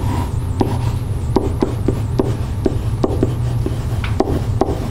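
Pen writing on an interactive whiteboard: a run of short, irregular taps and scratches as letters are drawn, about three a second, over a steady low hum.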